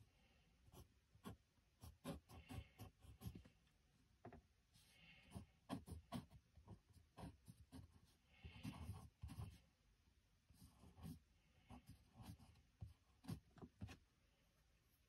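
Pencil writing on sketchbook paper: faint, short scratchy strokes in quick clusters with light taps of the pencil, stopping about fourteen seconds in.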